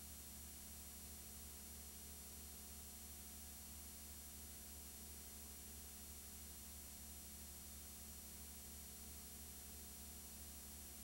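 Near silence: only a faint, steady electrical hum and hiss, with no sound from the car or anything else.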